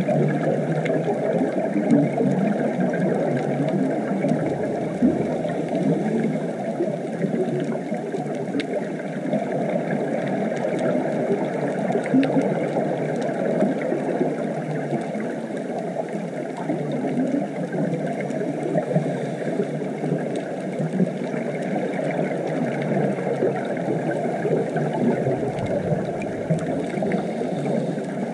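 Underwater ambience picked up by a GoPro in its waterproof housing: a steady, muffled rushing noise with faint scattered clicks.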